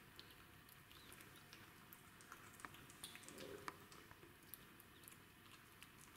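Faint, irregular little clicks and smacks of a kitten licking and chewing food from a hand.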